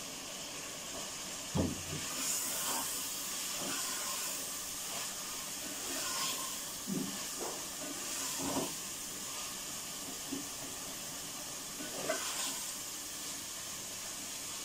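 Beef mince sizzling in hot oil and masala in a cooking pot, a steady hiss, as it is stirred with a spoon that knocks and scrapes against the pot a few times.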